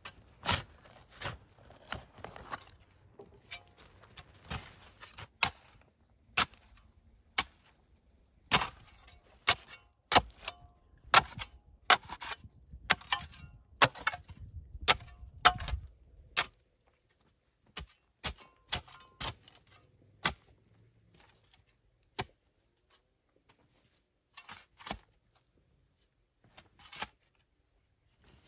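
Sharp, separate knocks of hand work on wood, coming irregularly about once a second, then sparser and fainter in the second half.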